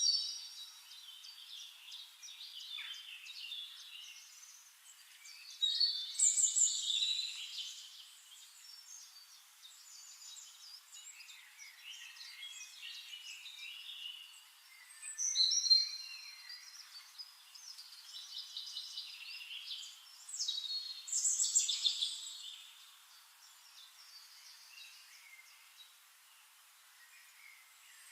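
Birds singing and chirping, with three louder bursts of song spread through and quieter chirping in between.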